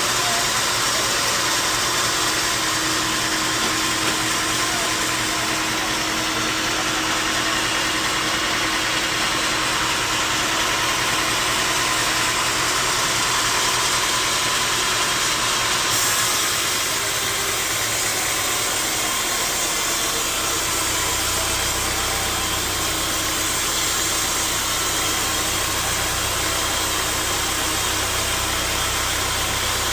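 Sawmill machinery running steadily. A low hum comes in about two-thirds of the way through.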